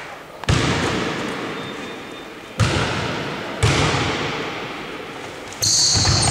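Basketball bounced three times on a wooden sports-hall floor, each bounce followed by a long echo in the hall. A louder, sustained burst of noise comes in near the end.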